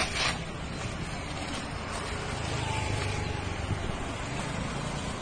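A brief crackly rustle of paper being crumpled by hand at the start, over a steady low outdoor rumble.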